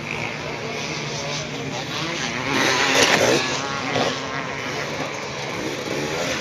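Off-road motorcycle engines revving, rising and falling, with the loudest bursts about halfway through.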